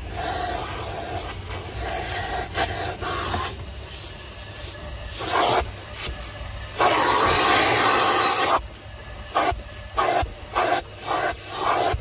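Henry cylinder vacuum cleaner running, its suction rushing louder and softer as the nozzle is worked over the car's leather seat. The loudest rush lasts about two seconds just past the middle, followed by several short ones near the end.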